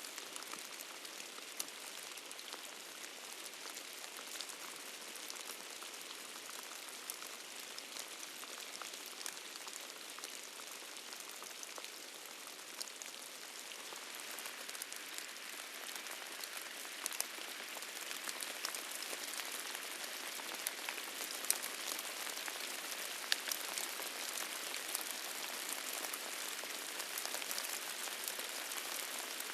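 Steady rain, a hiss of many drops with fine individual ticks, growing heavier about halfway through. No thunder is heard.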